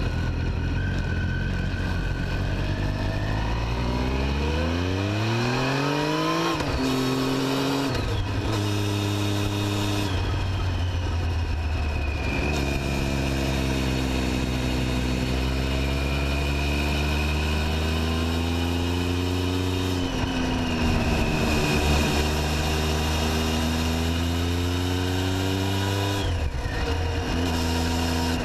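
Triumph Tiger 800XC's three-cylinder engine and exhaust on the move, heard close to the silencer. The revs climb steadily for about six seconds and drop at a gear change, then rise and ease with the road speed, with further changes later on.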